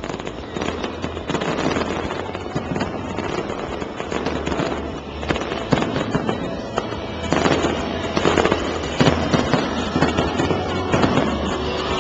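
Aerial fireworks going off in quick succession, many bangs and crackles overlapping, with several louder bangs in the second half.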